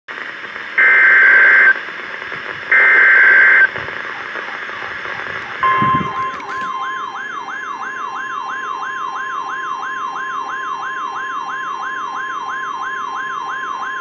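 NOAA Weather Radio alert: two short buzzy data bursts of the SAME header, then about six seconds in the steady 1050 Hz warning alarm tone begins, overlaid by the weather radio's own warbling siren alarm, sweeping about three times a second.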